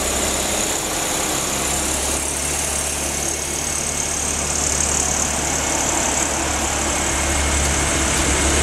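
Diesel engine of a VT 624 diesel multiple unit running as the railcar passes, a steady low drone that grows louder near the end.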